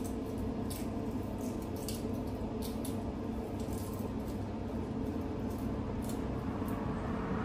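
Boiled egg being peeled by hand: faint, irregular crackles and ticks of the shell breaking away, over a steady low background hum.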